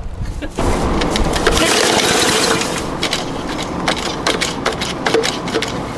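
Murray push mower's Briggs & Stratton engine catching about half a second in and running steadily, with many sharp ticks throughout.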